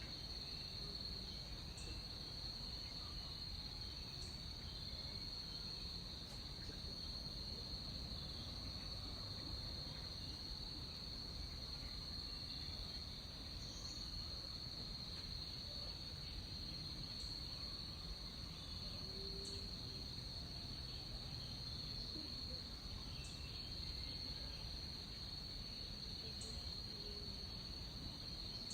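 Rainforest insects in a continuous chorus: one steady, high-pitched drone that holds the same pitch without a break, over a faint low background noise.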